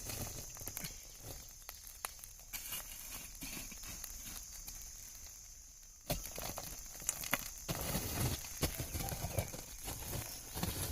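Irregular metal clinks and scrapes of a utensil working in a pot, becoming busier and louder about six seconds in, over a steady high drone of insects.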